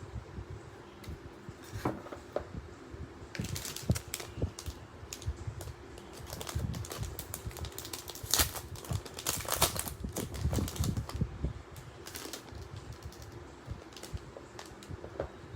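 Irregular sharp clicks and taps from hands handling small items and packaging during an unboxing, thickest in the middle stretch.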